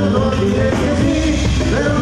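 A live Mexican group playing an upbeat dance number on accordion, saxophone, guitar, electric bass and drum kit, with a singer on the microphone.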